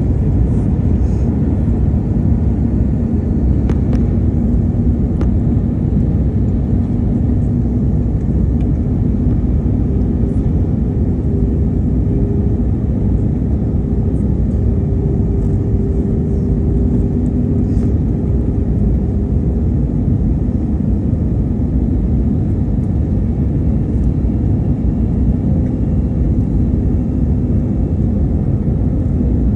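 Steady, loud rumble of a jet airliner's engines and airflow heard inside the cabin, with faint steady engine hum tones running through it.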